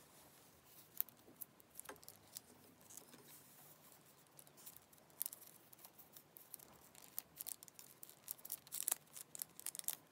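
Faint handling noise from a leather shoulder strap with brass snap hooks: light clicks, taps and plastic crinkling. The clicks come sparsely at first and grow much busier over the last three seconds, as a clear plastic protective wrap is pulled off a brass hook.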